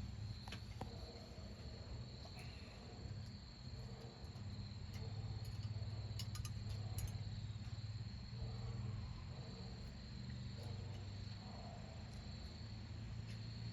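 Crickets chirping in a steady, high-pitched trill, over a continuous low rumble.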